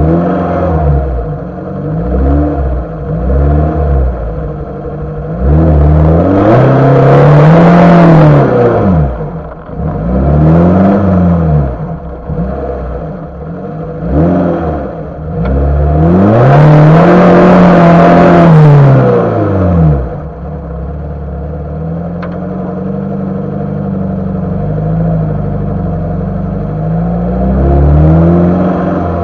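Lada Niva's engine revving up and easing off over and over while driving off-road. There are two long climbs in revs, about six and sixteen seconds in. After that it runs steadier at lower revs.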